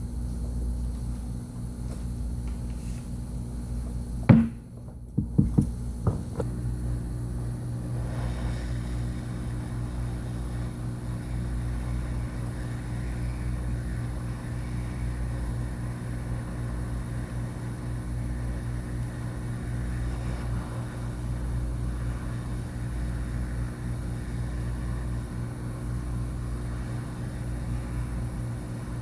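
A steady low electrical hum, with one sharp click about four seconds in and a few lighter clicks over the next two seconds.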